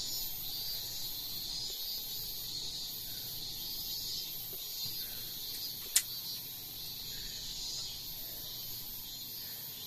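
Steady, faint high-pitched background hiss, with a single sharp click about six seconds in.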